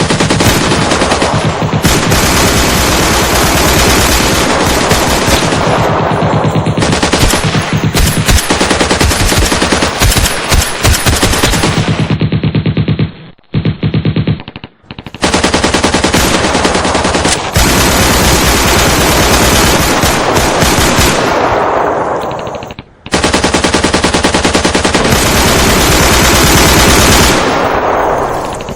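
Machine-gun fire in long, rapid bursts, with breaks of about two seconds roughly halfway through and a short pause a little later.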